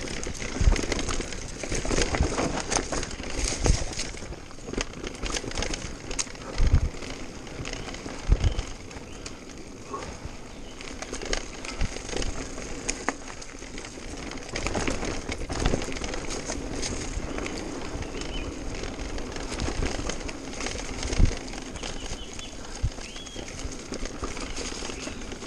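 Mountain bike ridden fast down a dirt forest trail: steady tyre and trail noise with constant rattling from the bike and several heavy knocks as it hits bumps.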